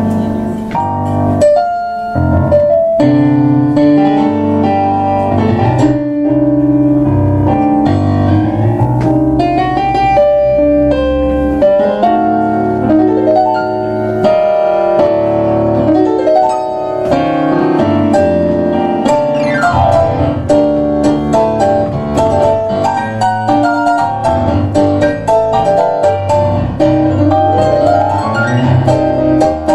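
Two digital pianos, one a Kawai MP6 stage piano, played together as a tango duet. The playing is continuous, with a driving bass line under the melody.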